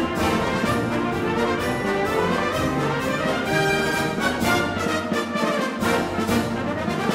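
Full military wind band playing a brisk march: brass and woodwinds over a steady percussion beat, with runs that climb and then fall midway.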